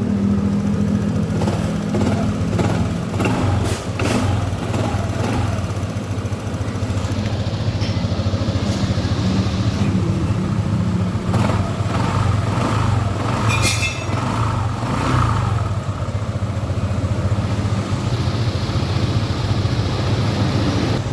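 Honda ADV 150's single-cylinder scooter engine idling steadily, running again now that a loose connector socket behind its no-start fault has been made tight. A few light knocks and rattles come and go over the engine sound.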